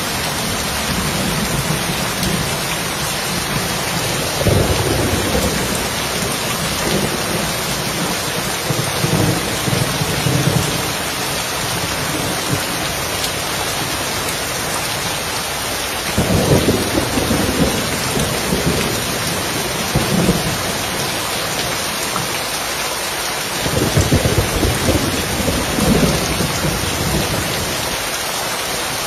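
Steady heavy rain falling on a roof, with low thunder rumbling several times; the strongest rumbles come a little past halfway and again near the end.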